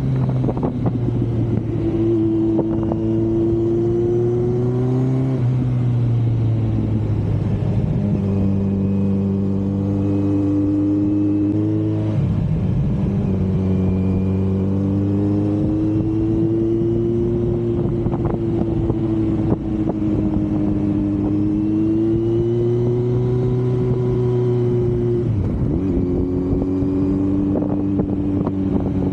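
Kawasaki Z900 inline-four engine and exhaust under way, the engine note drifting up and down with three short breaks and steps in pitch, as at gear changes. Wind buffets the camera's microphone.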